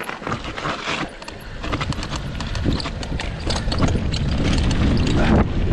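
Cannondale Scalpel mountain bike rattling and clicking over a bumpy trail. A rising rumble of wind on the microphone builds from about two seconds in.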